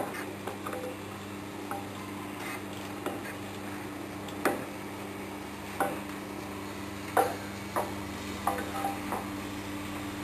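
Papad dough extruder running with a steady electric hum. Over it come irregular sharp metallic clicks and knocks, the loudest about four and a half and seven seconds in.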